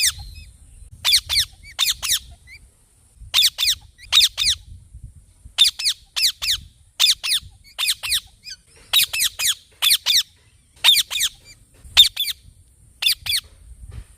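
Parrot giving shrill, repeated screeching calls in quick clusters of two to four, each call dropping sharply in pitch, with a cluster about every second or two.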